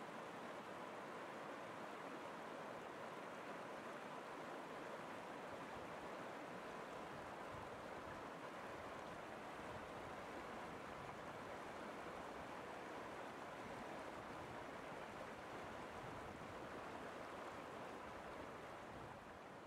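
Faint, steady rushing of a flowing stream that begins to fade out near the end.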